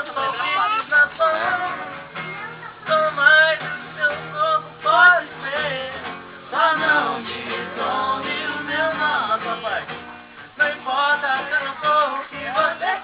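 Music: a man singing over acoustic guitar.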